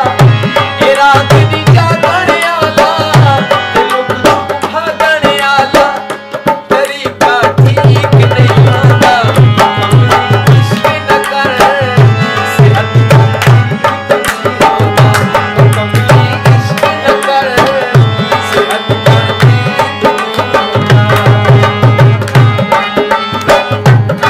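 Tabla and harmonium playing an instrumental interlude of a Punjabi folk song. The tabla's deep bass strokes keep a quick steady rhythm and drop out briefly a few times.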